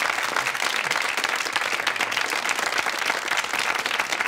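Studio audience applauding, many hands clapping at once, steady throughout.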